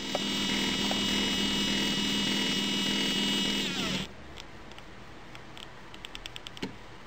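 Brushless laser-printer-drum motor and stepper motor of a laser scanning rig running with a steady, many-toned electric whine; a little after three and a half seconds the pitch sags and the whine cuts off abruptly. After it stops only a few faint ticks and a single click are left.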